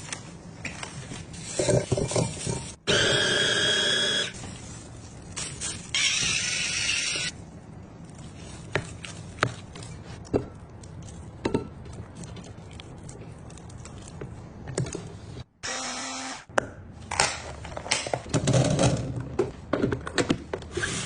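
Food containers and packages being handled and set into a fridge: scattered clicks, taps and knocks. There are two brief steady noises about three and six seconds in, and a shorter one near the end.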